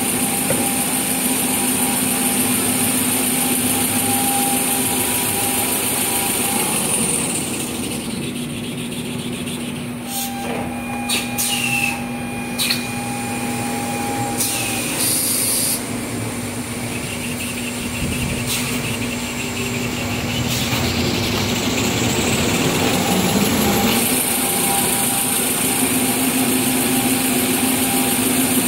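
Kitchen towel paper rewinding line running: a steady machine hum with several constant whine tones and a high hiss. The hiss drops away through the middle stretch, where a few short clicks and brief hisses come about a third of the way in.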